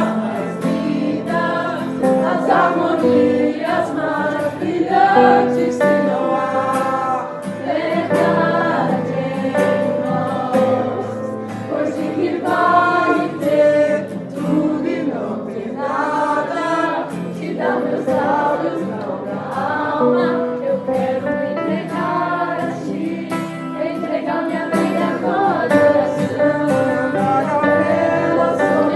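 A congregation or choir singing a gospel praise song together over instrumental accompaniment, continuous and loud.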